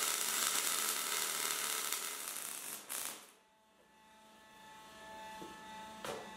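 MIG welding steel: the arc crackles and hisses steadily for about three seconds, then stops. After that a faint steady hum remains, with a light knock near the end as the welded steel part is handled.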